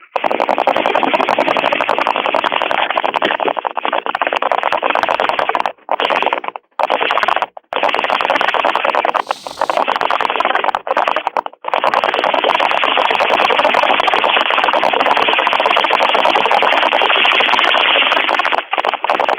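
A caller taking a bong hit right into the telephone mouthpiece: a loud, steady rushing and bubbling noise coming through the narrow phone line. It breaks off briefly a few times in the first twelve seconds.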